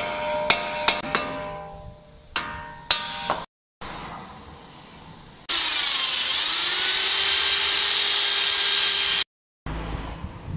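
Hammer blows on metal ringing out, several in the first few seconds; after a cut, a power tool runs steadily for about four seconds, its pitch dipping briefly under load and then recovering.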